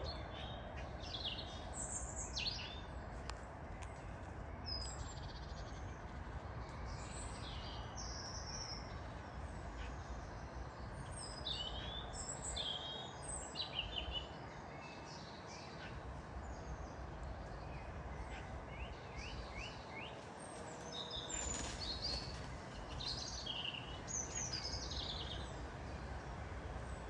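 Woodland birdsong in spring: several small birds singing and chirping in short phrases throughout, over a steady low background noise.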